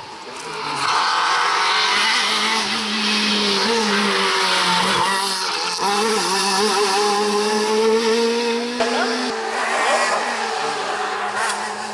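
Renault Clio R3 rally car's four-cylinder engine driven hard at high revs. It gets louder about a second in, its pitch wavers with throttle and gear changes, and the revs fall near the end.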